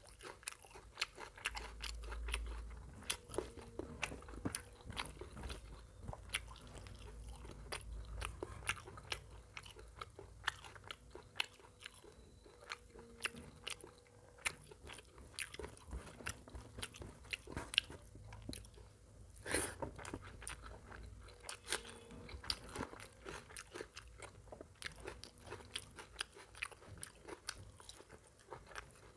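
Close-miked eating of mutton curry and rice by hand: steady chewing and biting with many sharp, irregular wet clicks and smacks, and fingers squishing through curry-soaked rice.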